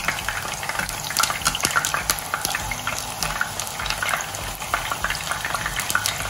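Eggplants par-frying in hot oil in a kadai: a steady sizzle with many small, irregular crackles and pops.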